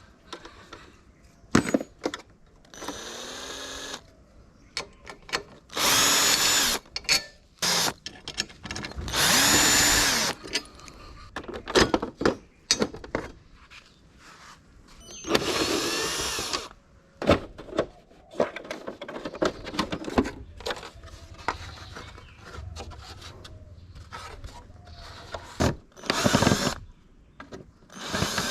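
Handheld power drill running in several short bursts of about a second each, the motor speeding up and slowing down each time, with scattered clicks and knocks between the bursts.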